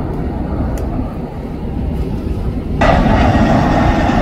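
Jet airliner engines on a takeoff roll, heard from a distance as a steady low rumble. About three seconds in, it cuts abruptly to the louder, brighter noise of an Airbus A320-family jet's engines as it passes close by on final approach.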